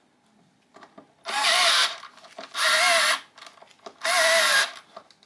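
Bosch cordless drill-driver running on screws in three short bursts of under a second each, its motor whine wavering in pitch under load.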